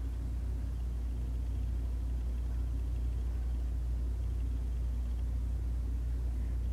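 A steady low hum of background noise, unchanging throughout, with no distinct events.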